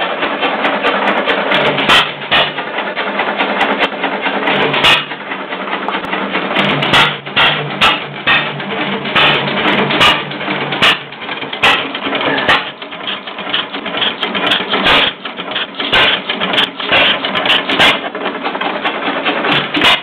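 United 4½ hp hit-and-miss gas engine running on its first fire, with sharp firing bangs at irregular intervals, roughly one a second, over a steady mechanical clatter.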